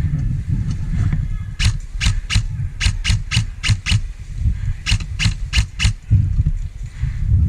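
Airsoft electric rifle firing rapid single shots: about a dozen sharp cracks in three quick strings, roughly three or four a second, over a low rumble of wind or handling on the microphone.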